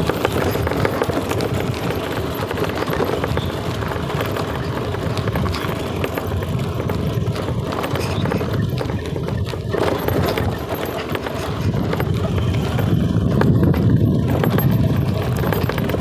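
Honda Activa scooter riding over a rough, broken road: the engine running under a steady jumble of knocks and rattles as it jolts over the bumps.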